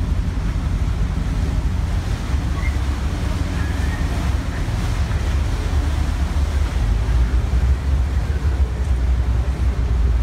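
Wind buffeting the microphone over the steady low rumble of a vaporetto (Venetian water bus) under way, with the wash of water along the hull.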